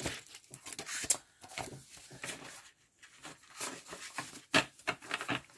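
Paper sheets and clear plastic packaging being handled: irregular rustling and crinkling, with a sharper crackle about four and a half seconds in.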